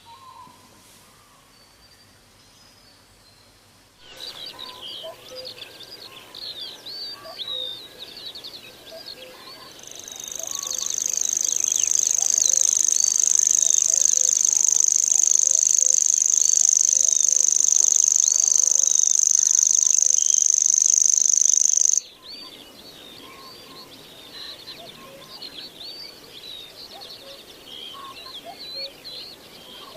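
Kerak basi (reed warbler) singing: a dense run of quick, sharp chirps and trills beginning about four seconds in. From about ten seconds a loud, steady, high-pitched insect drone joins and is the loudest sound, then cuts off suddenly at about twenty-two seconds while the chirping goes on.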